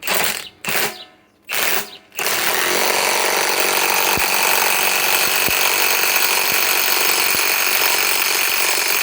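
Milwaukee M18 Fuel high-torque impact wrench tightening a 1-1/2 inch nut. A few short bursts come first, then from about two seconds in the impact mechanism hammers continuously.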